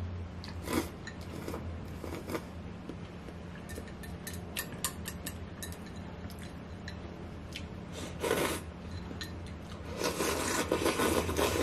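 Someone slurping thin noodles in broth from a ceramic bowl, with chopsticks clicking against the bowl; a few short slurps early, and a longer, louder slurp from the raised bowl near the end.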